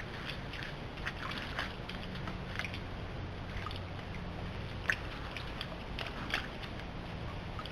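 Water trickling and sloshing, with scattered small sharp splashes or ticks over a faint steady low hum.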